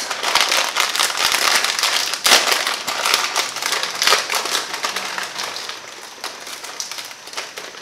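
Plastic wrapper of a Samyang Curry Buldak instant-ramen packet crinkling and crackling as it is handled to get the sauce sachets out, busiest for the first few seconds and thinning out toward the end.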